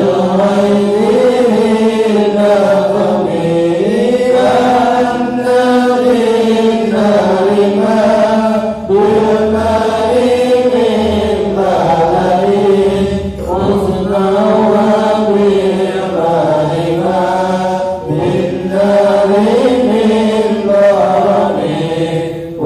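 Voices chanting Arabic Islamic devotional verses in a slow, melodic, drawn-out tune, with short breaths between lines every few seconds.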